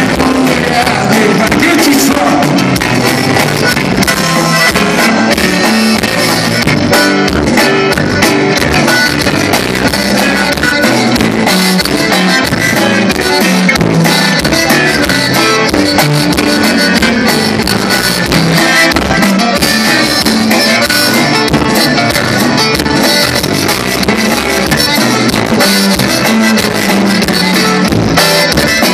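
A live conjunto band playing: button accordion leading over a twelve-string bajo sexto, electric bass and drum kit, with a steady dance beat.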